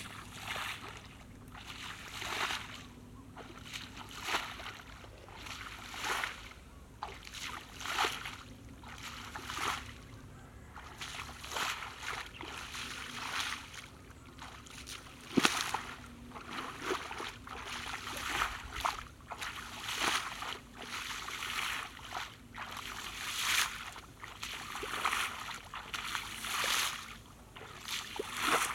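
Footsteps wading through ankle-deep water in a flooded grassy field, each stride splashing and sloshing in a steady rhythm of a bit more than one a second. A single sharp knock about halfway through.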